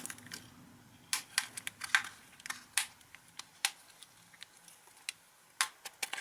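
Sharp, irregular plastic clicks as the ZTE A6 smartphone's back case is pried apart, its snap clips releasing under fingernails or a plastic opening tool.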